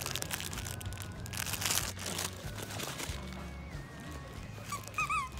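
Background music over crinkling and rustling as a plush dog toy is handled and grabbed, then two short high squeaks near the end.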